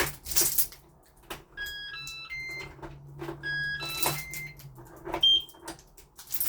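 Yale Conexis L2 smart lock sounding two short multi-note electronic chimes, about two seconds apart, then a single higher beep, during its button-held reset and programming sequence. Clicks and knocks from handling the lock and handle come in between.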